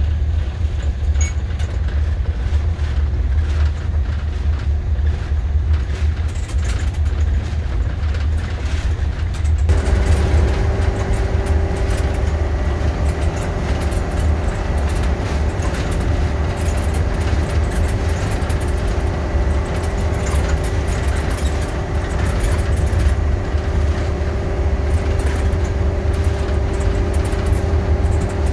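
Steady low engine and road rumble inside a moving RV's cabin. About ten seconds in a steady hum joins and holds.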